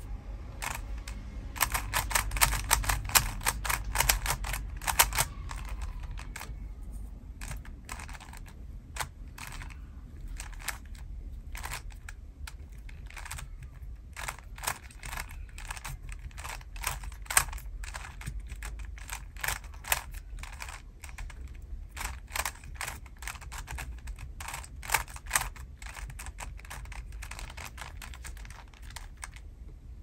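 A plastic 3x3 puzzle cube being turned by hand during a solve, its layers clicking and clacking with each turn. There is a fast flurry of turns from about two to five seconds in, then shorter runs of turns with brief pauses between them.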